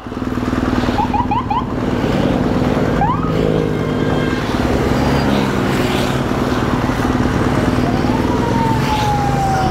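BMW GS adventure motorcycle riding at steady speed, its engine running under a constant rush of wind, as heard from the bike's own camera. A few short rising chirps come about a second in, and a long slowly falling tone comes near the end.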